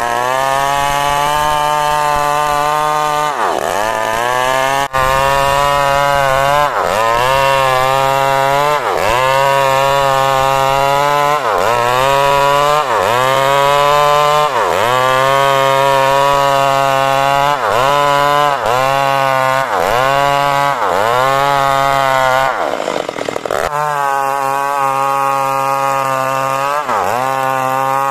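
Chainsaw sawing coconut wood into boards, its engine running at high speed. The pitch dips sharply and recovers about every second or so, with a rougher stretch near the end.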